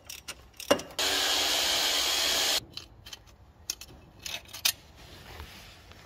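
A power tool runs steadily for about a second and a half, undoing the connecting-rod cap bolts on number 3 cylinder of an Isuzu 6BG1T diesel, with sharp metallic clinks of tools and parts before and after it.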